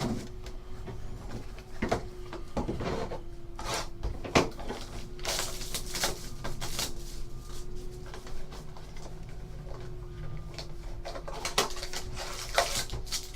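Trading-card packs and their packaging handled and opened by hand: crinkling and rustling with scattered taps and knocks, over a faint steady hum.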